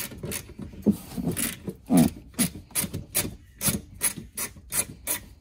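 Small hand socket ratchet clicking in short, regular strokes, about three a second, as it works a 10 mm solenoid mounting bolt loose on a golf cart frame.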